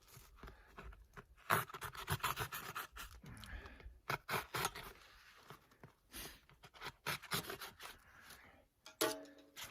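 Irregular scraping, rubbing and small knocks of hands and gloves working a stiff cover piece into place on the tent. A short voiced grunt comes about nine seconds in.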